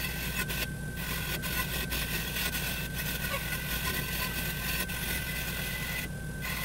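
Bench grinder wire wheel running, brushing corrosion and dirt off an aluminium snowmobile secondary clutch sheave held against it, over the motor's steady hum. The brushing drops out briefly twice, about a second in and near the end, leaving the hum.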